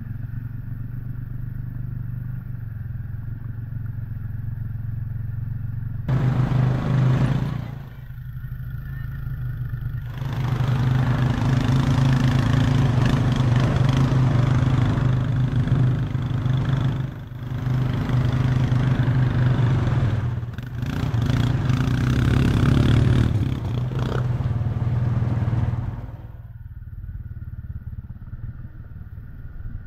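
ATV engine running steadily while wading through deep floodwater. In two long spells in the middle, the engine works harder and loud churning and splashing of water covers it, then it settles back to a steadier run.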